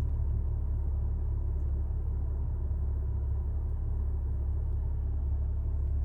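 Steady low rumble with no distinct events: constant background noise.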